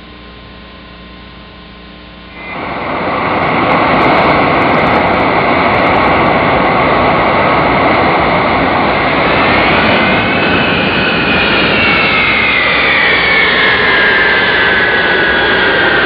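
Jet fighter flying past, its engines loud: a dense rush of noise that comes in abruptly about two and a half seconds in, with a high whine on top that rises a little and then glides down in pitch over the last several seconds.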